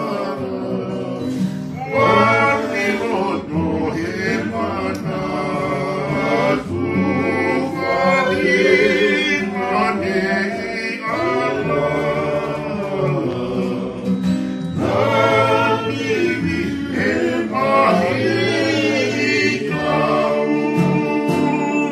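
A group of voices singing together in harmony to an acoustic guitar, in phrases of a few seconds with brief breaks between them.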